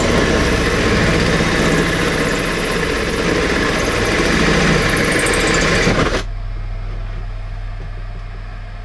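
Cordless drill running under load as it bores a hole through the top of a fuse board, a loud, steady grinding with a high whine. It stops abruptly about six seconds in, leaving a low steady hum.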